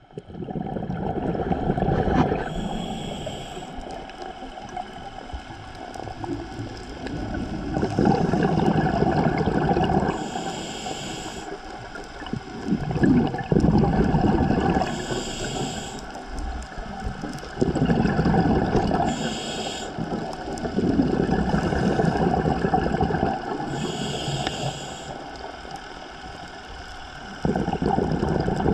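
Scuba diver breathing through a regulator underwater: a short hiss of inhaled air about every four to five seconds, alternating with the louder low rumble of exhaled bubbles.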